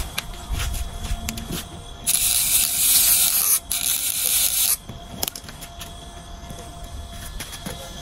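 Harsh hissing scrape of a scissor blade held against the spinning shaft of a small DC motor. It starts abruptly about two seconds in, breaks off for a moment, then stops abruptly after about two and a half seconds.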